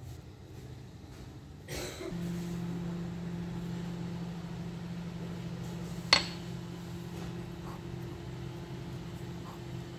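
A spoon knocks once sharply against a ceramic bowl about six seconds in, followed by a couple of faint clicks, over a steady low hum that starts about two seconds in.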